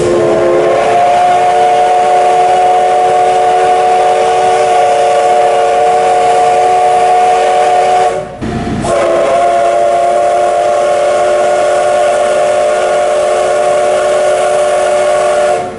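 Steam whistle of the steam locomotive C58 363 blowing two long blasts, each a steady chord of several tones, with a short break about eight seconds in. It is heard from aboard the train.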